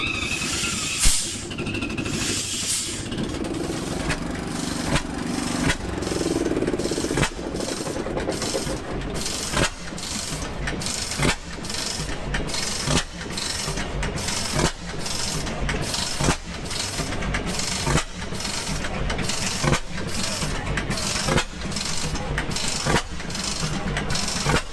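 Large antique stationary gas engine with heavy flywheels starting up. A couple of knocks and a few seconds of rushing noise come first. From about seven seconds in it settles into slow, even firing strokes about every second and a half.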